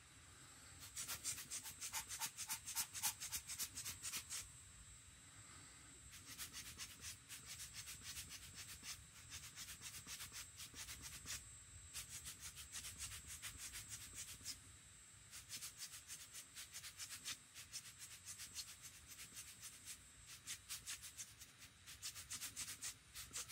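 Quick, scratchy rubbing strokes, from pigment being spattered in fine speckles over a watercolor painting. They come in runs of a few seconds with short pauses between, the first run starting about a second in.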